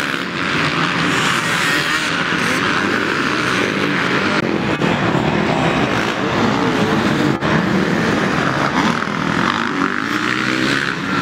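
Racing motorcycle engines running hard in a race, their pitch rising and falling as they accelerate and ease off.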